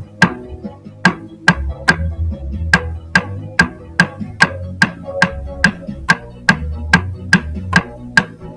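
Sharp, wooden-sounding clicks keep a steady beat, about two and a half a second, over a soft backing track with a low bass line. This is the count-in of a bucket-drumming play-along.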